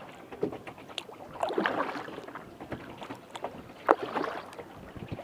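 Water slapping and splashing against the hull of a Delta 10 kayak as it is paddled, with the paddle blades dipping into the water and a sharp knock about four seconds in.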